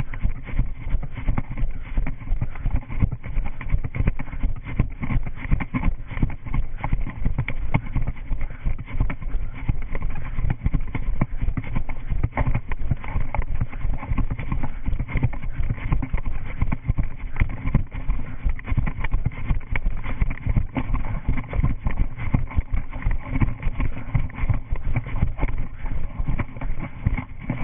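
A runner's footfalls in a quick, steady rhythm, picked up by a body-worn GoPro Hero 3 that jolts with each stride.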